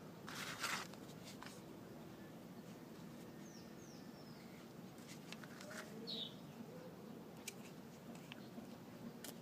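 A few short, high, falling chirps from a bird over faint low background noise, with a brief rustle or knock near the start and a few small clicks.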